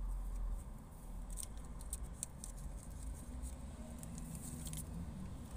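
Steady low rumble of a stationary car heard from inside the cabin while it waits at traffic lights, with a scatter of faint, irregular light clicks between about one and five seconds in.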